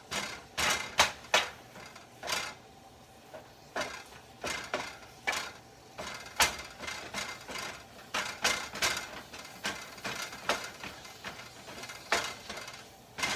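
Cooking utensil chopping at raw ground beef in a frying pan, breaking it up: an irregular clatter of knocks and scrapes against the pan, with a few sharper taps standing out.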